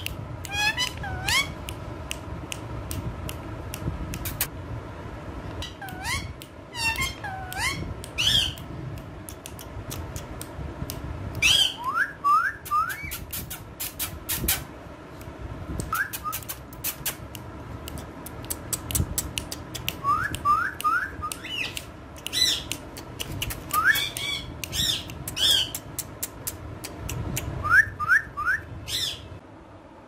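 Female Indian ringneck parrot calling: short rising whistles in quick groups of two or three, mixed with higher, harsher squawks. Sharp clicks are scattered throughout.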